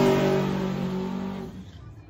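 Pickup truck's engine held at steady high revs after a burnout, fading away over about a second and a half as the truck pulls off down the drag strip.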